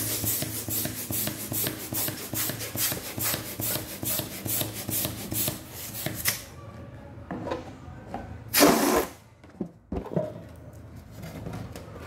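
Hand balloon pump worked in quick strokes, a rhythmic rasping puff about five times a second, inflating a latex balloon; the strokes stop about six seconds in. One louder, longer whoosh comes near nine seconds.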